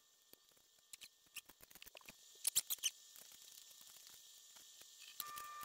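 Faint, scattered clicks and light taps of aluminium parts and hand tools being handled on a workbench, with a short cluster of louder clicks about two and a half seconds in. A faint steady high whine starts near the end.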